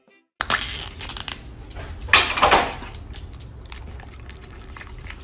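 A dog licking and lapping yogurt from a small plastic cup held in someone's fingers, with crinkling and clicking of the thin plastic, starting about half a second in. A louder rustling burst comes about two seconds in.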